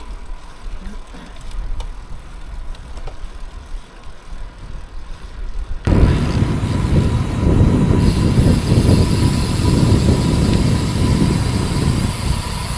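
Wind rushing and buffeting over the camera microphone on a moving bicycle, jumping suddenly much louder about six seconds in.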